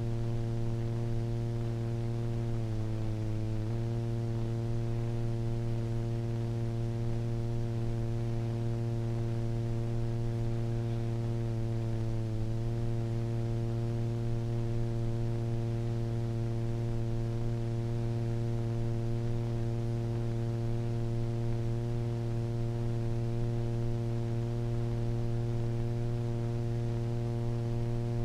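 Steady low electronic drone with a stack of overtones, the film's sine-wave soundtrack playing back through a speaker. It wavers briefly about three seconds in and again around twelve seconds.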